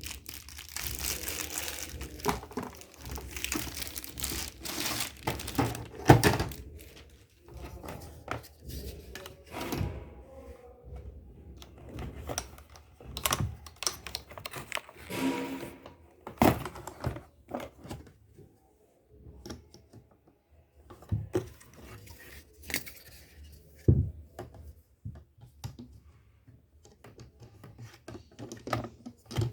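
Plastic packaging crinkling and rustling for the first few seconds, then scattered knocks and thunks as the keyboard and its box are handled.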